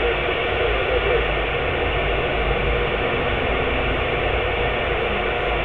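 CB radio receiving skip on channel 6 (27.025 MHz): a steady wash of static with faint, garbled voices of distant stations buried in it.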